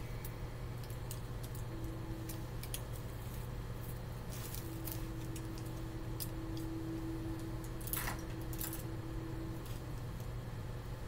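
Light clicks and rustles of paint brushes and a plastic-wrapped paint palette being handled, with a louder crinkle of the plastic wrap about eight seconds in. Under it runs a steady low hum, with a faint tone that comes and goes.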